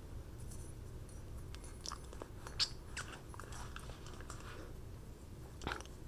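Small folding knives and a folding corkscrew tool handled in the hands: scattered light metal clicks, clinks and short scrapes, the sharpest click about two and a half seconds in, over a low steady hum.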